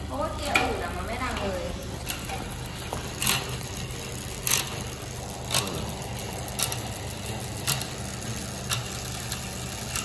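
Canyon Aeroad road bike drivetrain turned by hand on a work stand: the chain runs over the spinning cassette, and a sharp click comes about once a second. This is the noise being chased, which is put down to a part that is too big.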